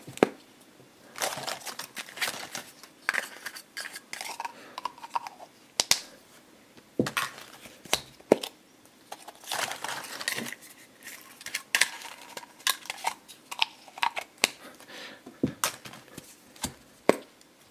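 Hands working a plastic Trash Pack test-tube capsule and its cap: irregular clicks, taps and plastic crinkling, as a figure stuck inside the tube is worked loose.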